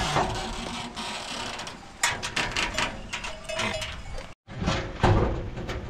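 A quick run of rattling clicks and knocks from a corrugated metal sheet door being moved, starting about two seconds in, with a harder knock near the end.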